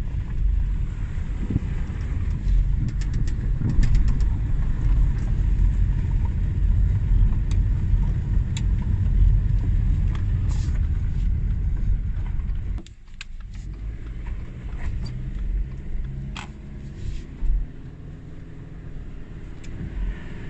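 Husqvarna big-bore single-cylinder dirt bike engine running while riding, with a heavy low rumble. About two-thirds of the way through it drops off suddenly to a quieter, steadier engine note.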